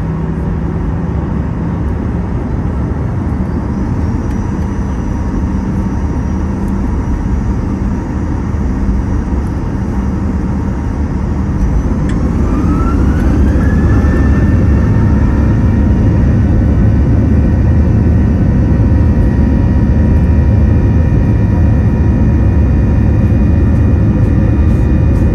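Boeing 737-800's CFM56-7B turbofan engines heard from inside the cabin, running steadily, then about twelve seconds in spooling up for takeoff thrust with a rising whine that settles into a steady chord of several tones over a louder rumble.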